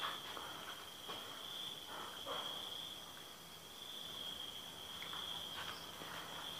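Crickets trilling steadily on one high pitch, faint, with a few soft scuffs of movement.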